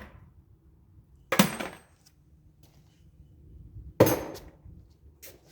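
Two sharp metal clanks about two and a half seconds apart, each ringing briefly: tools or parts knocking against metal during the tear-down of a riding mower.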